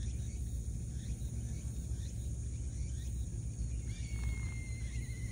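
Outdoor ambience: a steady low rumble under a faint high, even hiss, with a few faint short chirps and, about four seconds in, a thin whistle-like tone that holds for a second or so while falling slightly in pitch.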